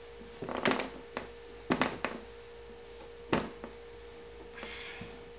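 A few sharp clicks and knocks from bar clamps being handled and tightened on a glued-up wooden board, scattered over several seconds, the loudest about three seconds in, over a faint steady hum.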